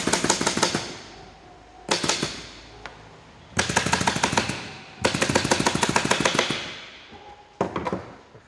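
Pneumatic upholstery staple gun firing in five quick strings of rapid shots, driving staples to fasten fabric onto a recliner backrest.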